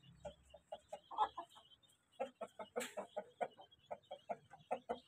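Domestic hen clucking: a few scattered clucks, then a fast run of short clucks, about five a second, from about two seconds in.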